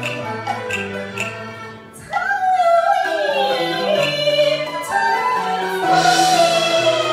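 Cantonese opera singing: the instrumental accompaniment plays, dips briefly, and about two seconds in a woman begins singing a long, wavering sung line over it.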